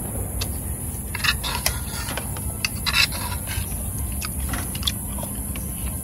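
Eating from a bowl by hand: scattered small scrapes and clicks as food is picked from the bowl and eaten, over a steady low rumble.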